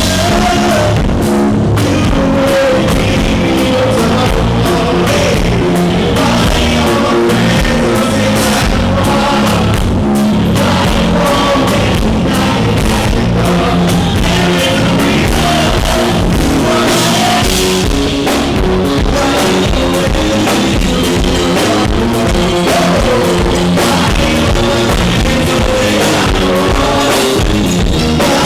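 Live band, with guitar and drum kit, playing loudly under a vocalist. The recording is harsh, from a microphone overloaded by the club's sound system.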